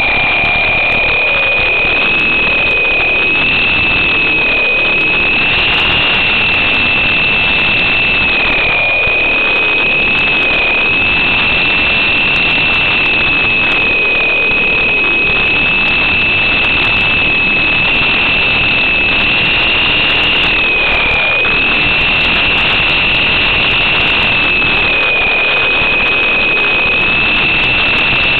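High-pitched whine of a coaxial RC helicopter's small electric motors, heard close up from on board, over a steady hiss. The pitch wavers slightly up and down as the throttle changes in flight.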